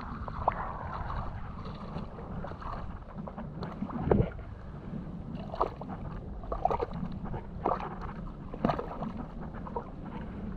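Rubber boots squelching and splashing through wet mud and shallow water on a tidal mudflat, irregular steps about once a second, over wind rumbling on the microphone.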